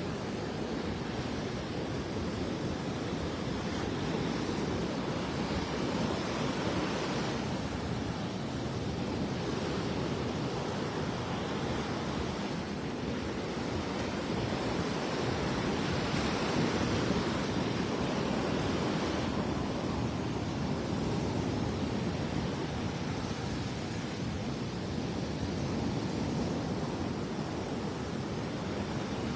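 Rough Gulf surf breaking and washing up on the beach, a steady rush of water that swells and eases every few seconds, with wind on the microphone.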